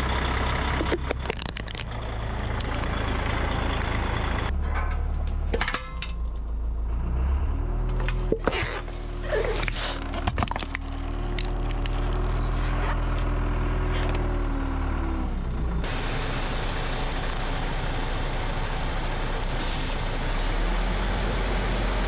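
Vehicle engines running as car and truck tyres roll slowly over plastic objects, crushing them with sharp cracks and crunches over the engine noise. Partway through, a heavy engine's pitch rises, holds, then falls. The engine background changes abruptly twice where one crushing clip cuts to the next.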